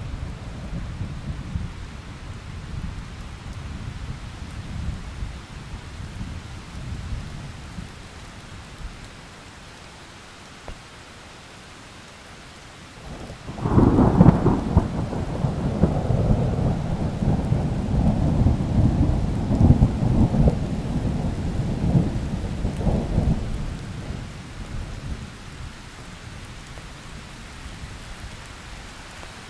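Thunderstorm with steady rain. A thunderclap breaks about halfway through with a sudden crack and rolls on as a rumble for about ten seconds before fading. The last of an earlier rumble dies away in the first few seconds.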